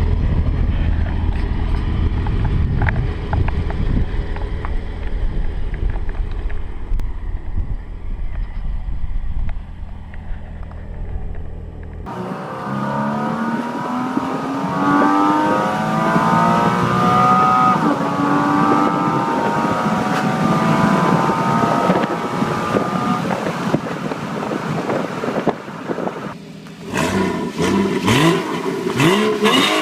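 Porsche Cayman 981's 2.7-litre flat-six running steadily at low revs for about twelve seconds. Then it accelerates hard, its pitch climbing repeatedly as it pulls through the gears, with a brief drop just before another run near the end.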